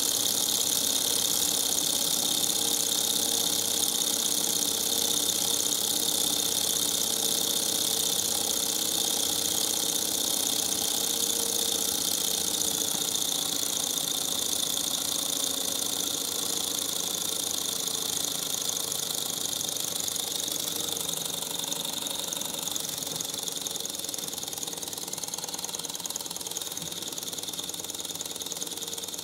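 Mini hot-air Stirling engine running on its own, a steady light mechanical clatter from its piston, crank and flywheel. It grows gradually quieter toward the end.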